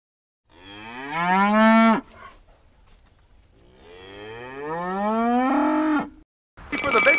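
Two long cow moos, each rising in pitch, the second building up more slowly, followed near the end by a brief burst of other sound.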